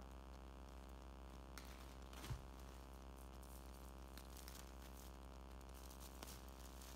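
Clear plastic shrink wrap being peeled off a cardboard box and crumpled, faint crinkling with a few sharper crackles, the loudest about two seconds in, over a steady low hum.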